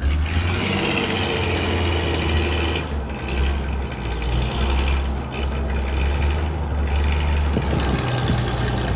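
A heavy vehicle's engine running steadily with a low hum.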